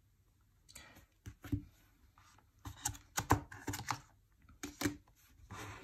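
Cardboard and paper inserts of an Apple Watch box being handled: an irregular run of short clicks, taps and brief scrapes as the pieces are lifted and slid out of the box tray, starting a little under a second in.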